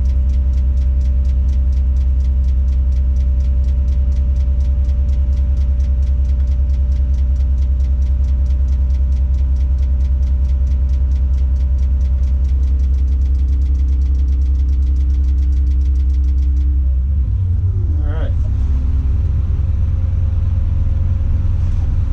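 Tadano 180G-5 crane's diesel engine running steadily, heard from inside the operator's cab, a low drone with a fine even ticking over it. About seventeen seconds in the ticking stops and the engine note shifts up as a control is worked.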